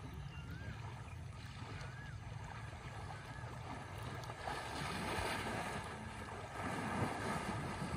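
River water rushing and splashing around elephants wading and swimming through it, the splashing louder from about halfway, with a brief peak about a second before the end. A low rumble of wind on the microphone runs under it.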